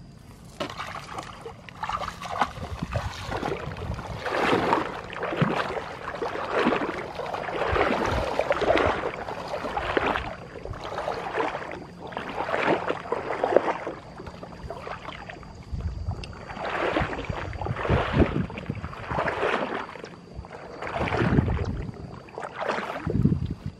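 A person wading through shallow muddy water among tall grass: rhythmic sloshing and splashing, about one surge a second as each leg pushes through the water and brushes the stems.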